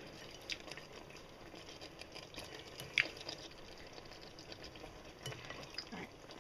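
Pasta being stirred into sauce in a pan, with a utensil scraping and clicking against the pan over a soft simmer. One sharper clink comes about halfway through.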